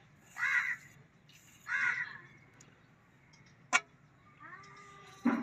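A crow caws twice, about a second apart. Midway there is a single sharp knock, and near the end a dull thud.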